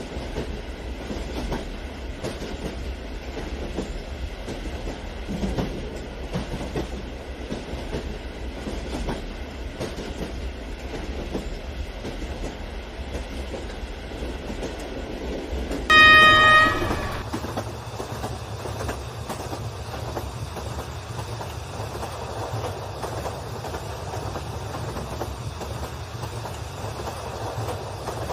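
HO scale DF4 model diesel freight train rolling along its track with a steady clatter of wheels. A little past halfway a loud horn sounds once for about a second.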